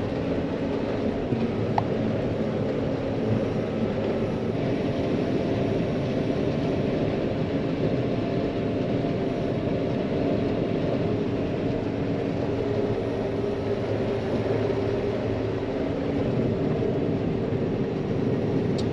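A John Deere 9500 combine running steadily while cutting wheat, a constant machine drone with a few steady tones in it.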